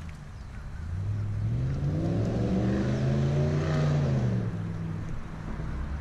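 A motor vehicle's engine on the adjacent road, its note rising to a peak about three and a half seconds in and then falling away.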